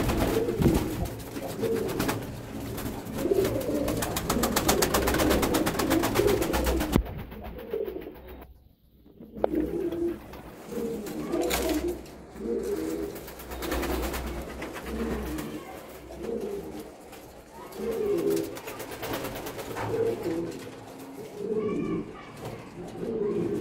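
Caged fancy pigeons cooing, low coos repeating every second or two. A low hum and clicking run under the first several seconds.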